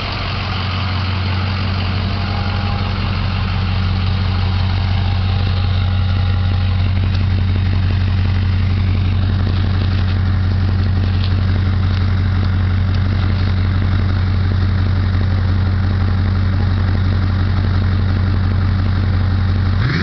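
Pickup truck engine idling steadily, heard close to the exhaust tailpipe as a deep, even exhaust note. It grows louder over the first few seconds as it is picked up nearer the pipe, then holds at a constant pitch.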